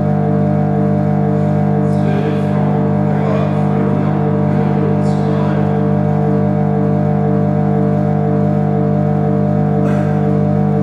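Dense electronic drone from a live-coded Max sound patch playing back recorded sound slowed down: a loud, steady, low hum of several held tones, crossed about two, five and ten seconds in by short hissing sweeps that fall in pitch.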